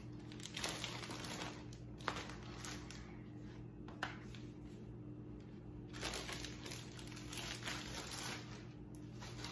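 Plastic bag of flour tortillas crinkling and rustling in the hands as its zip seal is pulled open and a tortilla is drawn out, with a few light clicks.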